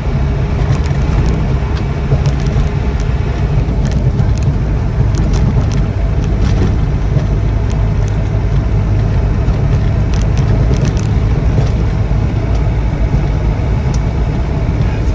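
In-cab driving noise of a Land Rover Defender 90 300Tdi: its 2.5-litre four-cylinder turbodiesel runs steadily under way with road noise, and a few faint clicks come and go.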